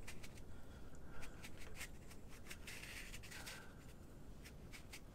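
Kitchen scouring sponge rubbing and scrubbing across watercolour paper: faint, scratchy strokes with small clicks, easing off after about three and a half seconds.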